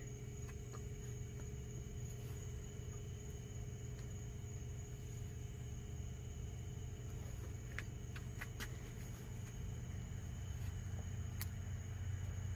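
A steady low hum with faint, steady high-pitched tones over it, and a few sharp clicks around two-thirds of the way through and once more near the end.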